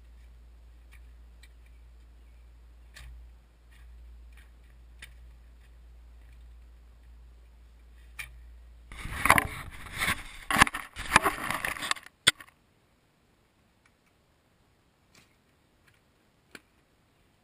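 Faint scattered ticks of a shovel and mattock chopping into dirt over a low hum. About nine seconds in come three seconds of loud scraping and knocking from the camera being handled and moved. It cuts off suddenly, leaving near silence with a few faint ticks.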